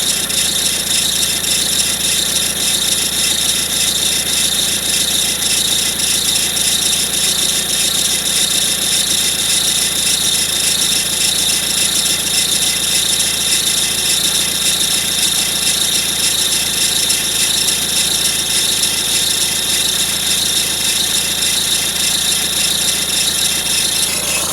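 Peugeot 407 engine idling cold with a steady high-pitched whine over the engine note. The noise has only appeared since a timing belt change and goes away once the engine has run for 2–3 minutes.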